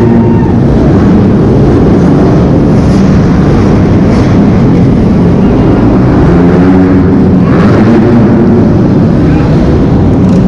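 Several dirt bike engines running and revving, loud, their pitch rising and falling as the riders work the throttle through the obstacles.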